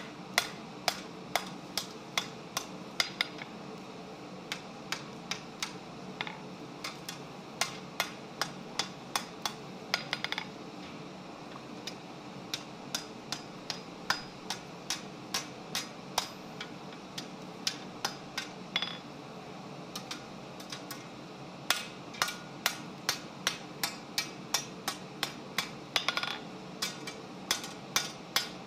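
Blacksmith's hammer striking a red-hot bar on the anvil to bend the curve of a shepherd's hook: runs of sharp metal blows, about three a second, broken by a few short pauses.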